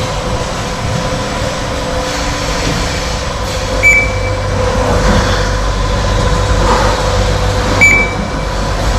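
Rotary milking platform and milking-shed machinery running steadily with a constant hum, a low rumble growing louder about halfway through. Two short high beeps sound about four seconds apart.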